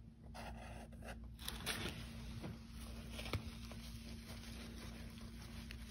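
Palette knife spreading and scraping paint across sketchbook paper: faint scraping strokes, mostly in the first two seconds, then lighter scrapes and a small click about three seconds in, over a steady low room hum.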